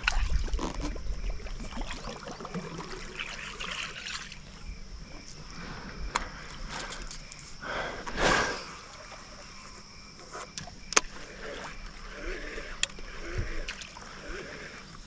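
Water lapping gently against a fishing boat's hull, with scattered clicks and handling noises from casting and reeling and a brief louder splash-like swish about eight seconds in.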